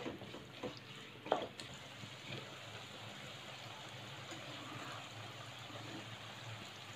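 Faint sizzle of sliced onions sautéing in oil and gentle bubbling of a pot of rice simmering, with a few light knocks of a spatula in the pan in the first second and a half.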